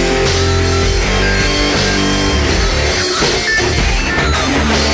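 Background rock music with electric guitar and drums, dense and steady.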